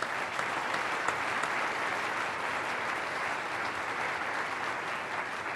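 Audience applauding steadily, the clapping easing off near the end.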